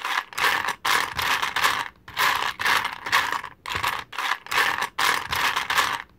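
Rhythmic intro track made of scratchy, rattling noise bursts repeating just under once a second, with a soft low thump every couple of seconds.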